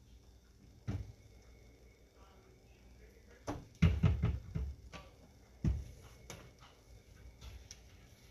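Plastic clunks and knocks of a Braun stick blender against a plastic pitcher of soap batter. There is one knock about a second in and a quick run of knocks near the middle, the loudest part. A couple of single thumps follow as the blender is lifted out and set down on the counter.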